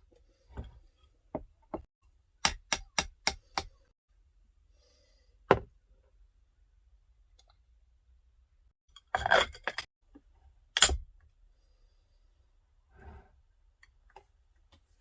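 A series of sharp knocks and clicks from objects being handled: a run of five quick strikes about two and a half seconds in, then single knocks and a short cluster of clatter in the middle, with fainter taps near the end.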